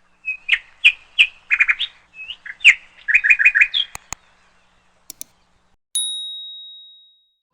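A run of quick, high bird chirps, some in fast groups of three or four, then a few short clicks and a single bright ding that rings out and fades over about a second.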